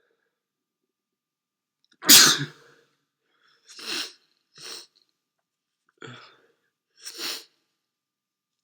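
A man sneezing: one loud, sudden sneeze about two seconds in, followed by four shorter, quieter bursts over the next five seconds.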